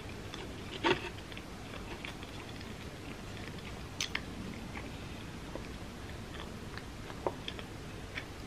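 Close-miked chewing of pizza crust with the mouth closed: soft chewing with scattered small crunchy clicks, and a few sharper crackles about one, four and seven seconds in.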